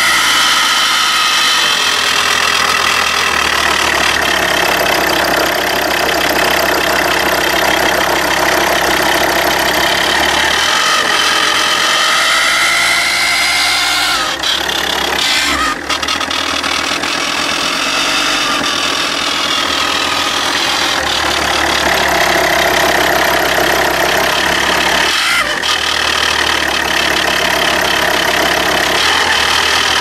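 Alfa Romeo 166's 2.4 JTD five-cylinder common-rail diesel engine running at idle, heard close up in the open engine bay. It makes an unusual noise that the owner cannot identify. There is a whine that rises and falls in pitch, and a few brief clicks come around halfway and again later.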